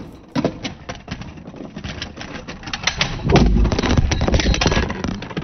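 Handling noise from the recording device as it is knocked over and falls: a run of irregular clicks and knocks, then a louder muffled rumble about three seconds in as it is rubbed and jostled against the microphone.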